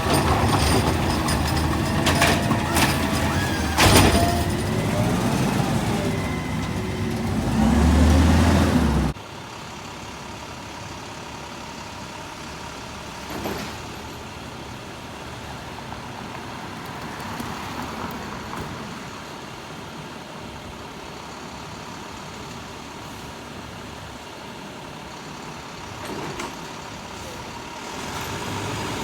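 Garbage truck working close by: engine running with several sharp clanks and a louder low rumble, then an abrupt change about nine seconds in to a much quieter, steady truck rumble with an occasional faint knock.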